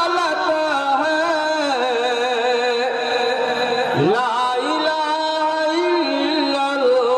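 A man chanting devotional Urdu verses in a drawn-out melodic style, his single voice holding long, wavering notes, amplified through microphones. About four seconds in he breaks off and starts a new phrase with an upward swoop.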